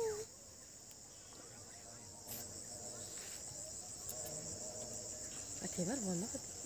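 Steady high-pitched chirring of insects in the fields. A short wavering vocal call rises and falls near the end.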